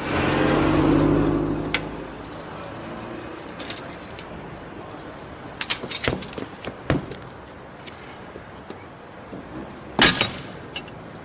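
A car drives past close by, its engine and tyres loud for the first two seconds and then fading away. Later come a few short knocks about six seconds in and one sharp, louder bang about ten seconds in, as a man kicks and strikes a front wheel of an old Lada saloon.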